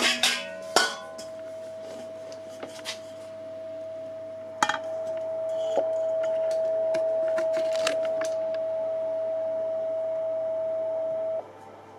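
A steady, single-pitched electronic tone from a homemade woven wire coil fed a test frequency. The tone grows louder about five seconds in and cuts off suddenly near the end. A few short metallic clinks of a steel pot sound over it.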